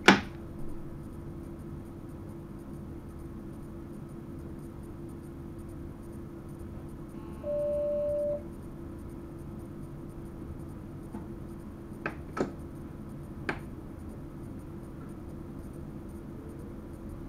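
Steady hum inside a moving train's driver's cab, with a sharp click at the start, a single short electronic beep about halfway through, and three more sharp clicks a few seconds from the end.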